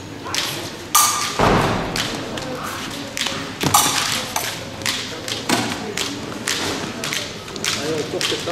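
Épée fencers' footwork on the piste: a series of stamps and thuds of their shoes, mixed with sharp taps, the heaviest thud about a second and a half in.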